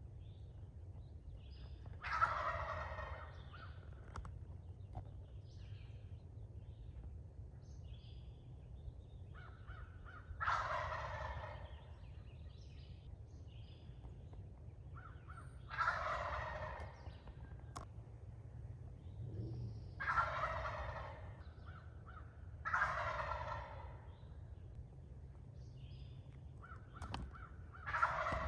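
Eastern wild turkey gobbling, about six gobbles spaced several seconds apart, each a rattling call about a second long.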